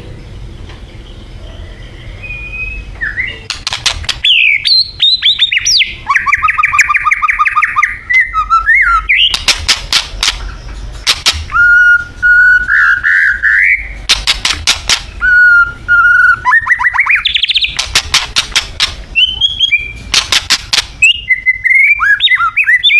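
White-rumped shama (Thai murai batu) singing loudly from about four seconds in. It gives varied whistled phrases and fast rattling trills, broken several times by bursts of rapid sharp clicks.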